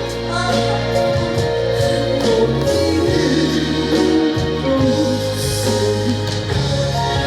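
Trot song performed live: a woman singing over full instrumental accompaniment.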